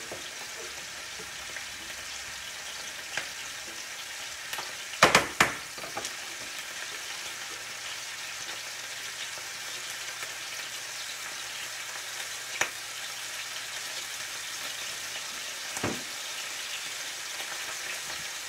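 Scallops searing in hot olive oil in a frying pan, a steady sizzle. A few sharp clacks break through it, the loudest a quick cluster about five seconds in.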